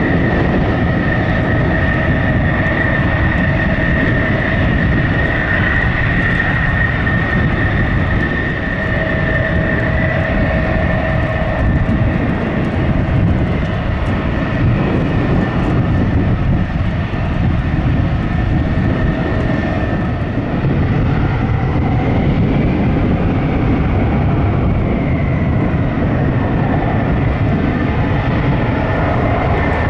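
F-16 fighter jet engines whining at taxi power as the jets roll past: a steady high whine over a low rumble, the whine easing somewhat in the last third.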